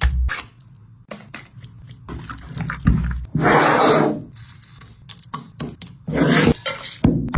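Kitchen preparation sounds: scattered knocks and scrapes, with rushes of water or liquid about three seconds in and again near the end.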